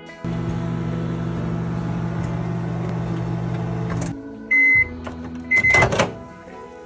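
Microwave oven running with a steady hum for about four seconds, then stopping. It gives a short high beep, and a second beep comes with a brief clatter.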